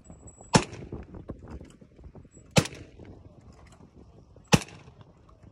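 Three shots from a JTS semi-automatic 12-gauge AK-style shotgun, fired at a steady pace about two seconds apart, each a sharp report with a short tail.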